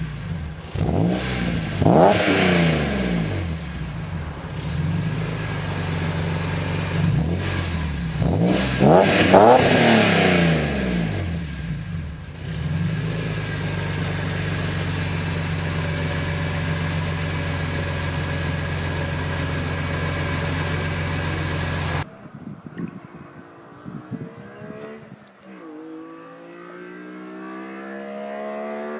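BMW Z3 M Coupe's S54 inline-six revved repeatedly, pitch climbing and falling with each blip, then settling into a steady idle. About 22 seconds in the sound cuts off suddenly to a quieter passage with a slowly rising engine tone.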